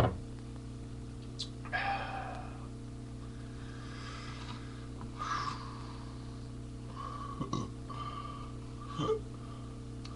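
A man burping, with short mouth and throat sounds scattered over a steady hum.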